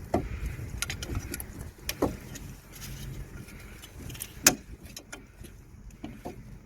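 Irregular hammer blows on a steel chisel, metal on metal, driving a seized wheel bearing cassette off the back plate; the loudest strike comes about four and a half seconds in.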